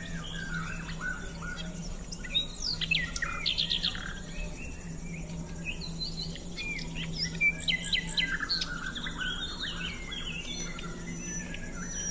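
Small birds chirping and twittering, many short quick calls and downward-sweeping notes overlapping, over a faint steady low hum.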